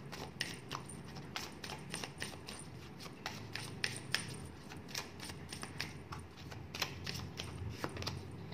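Tarot and oracle cards being handled on a table: a run of irregular crisp clicks and taps, several a second, as the cards are shuffled and laid down.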